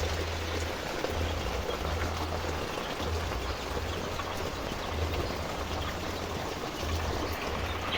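Steady rain, an even hiss, with an irregular low rumble underneath.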